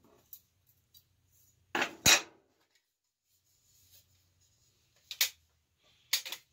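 Thin sheet-metal clinking and clacking as an Altoids tin and a paint-can lid are handled and knocked together while the tin is fitted into the lid's cut-out. The clicks come in pairs: the loudest about two seconds in, another pair about five seconds in, and a third near the end.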